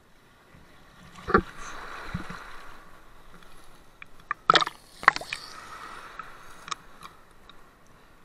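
Sea water sloshing and splashing around an action camera held at the water surface, with a sharp hit about a second in and two more near the middle.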